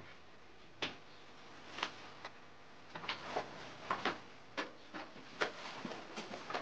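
Irregular light knocks and clicks of a person moving about and sitting down at a table, coming thicker from about three seconds in.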